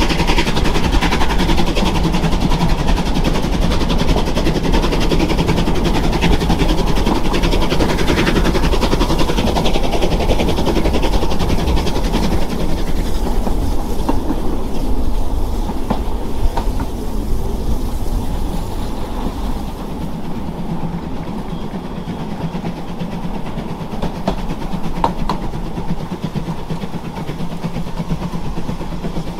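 A 750 mm narrow-gauge train running along the track, heard from on board: a steady rumble and rattle with occasional clicks from the wheels. It grows somewhat quieter after about twenty seconds.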